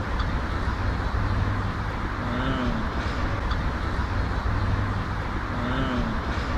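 Steady low rumble of outdoor background noise, like road traffic, with two short faint hum-like tones about two and a half and six seconds in.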